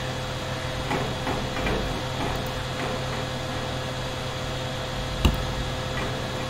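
Steady background hum with a faint constant tone, broken by a few faint ticks and one sharp click about five seconds in.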